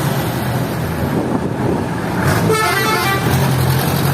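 Bus engine running steadily, with a short warbling blast of a 'basuri' telolet musical horn about two and a half seconds in that lasts under a second.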